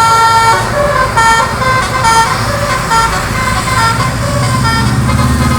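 Bus's multi-tone 'telolet' Basuri air horn playing a quick tune of short notes at changing pitches, over the low rumble of the bus's engine.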